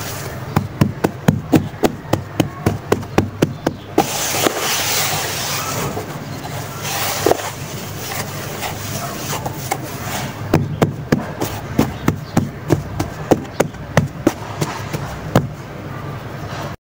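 Hands patting and squeezing damp, crumbly sand-cement mix in a plastic tub: a run of quick crunchy pats, about three a second, then a stretch of grainy scraping and crumbling as the sand is raked, then more pats. The sound cuts off suddenly near the end.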